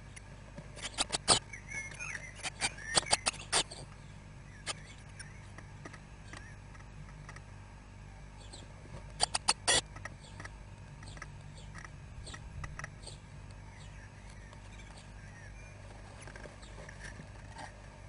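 Blue tit nestlings shuffling in a wooden nest box: clusters of sharp taps and scratches on the wood about a second in, around three seconds in and again near ten seconds, with faint high cheeps among them.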